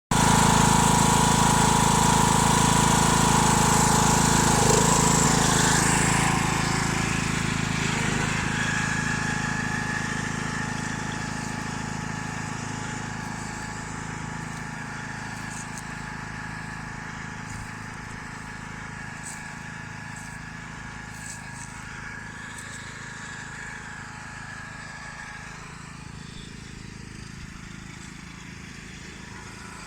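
Tractor engine running steadily, loud at first and then growing steadily fainter from about six seconds in.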